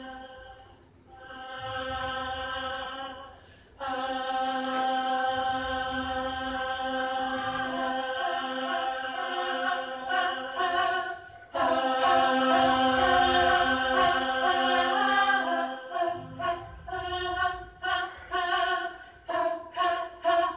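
Choral voices singing long held notes, with brief breaks about a second in, near four seconds and again midway, turning into shorter, choppier phrases in the last few seconds.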